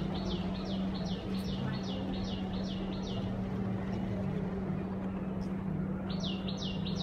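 A bird calling with a fast series of short, high, falling chirps, about four a second; it stops about three seconds in and starts again near the end. A steady low hum runs underneath.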